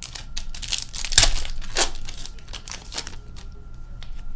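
Wrapper of a 2020-21 Upper Deck Series 1 retail hockey card pack being torn open and crinkled: a run of sharp crackles, loudest about a second in and again just under two seconds in.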